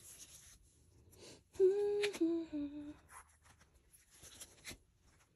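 A person briefly humming three notes, each a step lower than the last. Soft rustles and clicks of glossy photo cards being picked up and laid out on a rug come before and after the humming.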